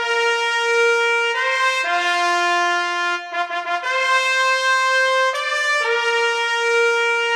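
Brass fanfare, trumpet-led: a slow phrase of long held notes, some sounding together, changing pitch every second or so.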